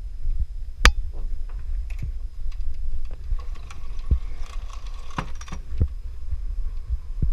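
Irregular sharp clicks and knocks, the loudest about a second in, over a steady low rumble.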